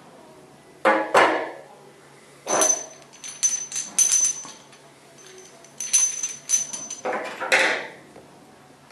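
A steel ring spanner and the chrome body of a thermostatic shower mixer being handled and set down on a table: a series of sharp metallic clanks and clinks, several with a brief high ring.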